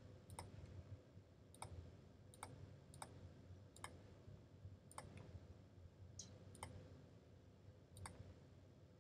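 Faint single computer mouse clicks, about nine, at uneven intervals.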